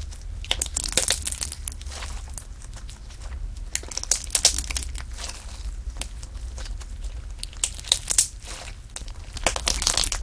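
Slime being squeezed, pressed and worked by hand, with dense crackling and crunching clicks and several louder bursts.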